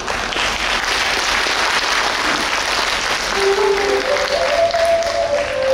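Audience applauding. About three and a half seconds in, an instrument enters under the clapping with long held notes.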